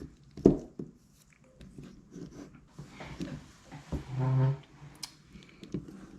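Handling noises: a sharp knock about half a second in, then light clicks and rustles as small objects are moved, with a brief hummed voice sound about four seconds in.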